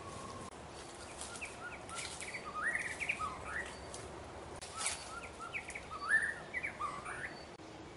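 White-rumped shama singing: two phrases of quick whistled notes, many of them rising, each about two seconds long.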